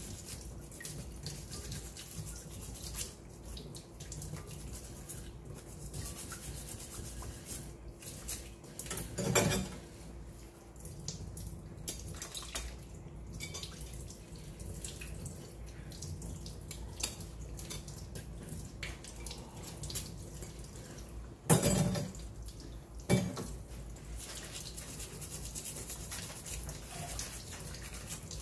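Kitchen faucet running into a steel sink while crabs are scrubbed clean under the stream, with splashing water. Three louder knocks break the water sound, one about a third of the way through and two close together later on.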